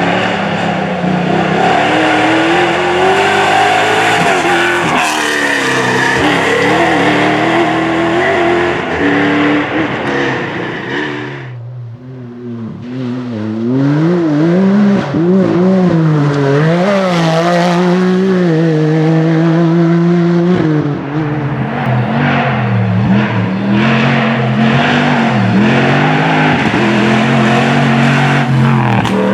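Rally car engines revving hard, their pitch climbing and dropping with gear changes as the cars pass at speed. The sound falls away briefly about twelve seconds in, then another car comes through revving.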